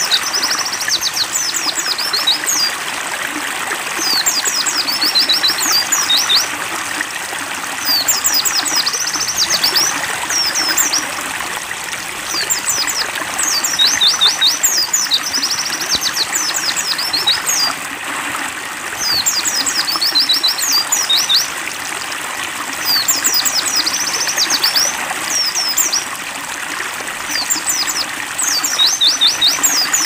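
White-eye (pleci) song, a quick phrase of high chirping notes repeated about every three and a half seconds, over the steady rush and trickle of a stream.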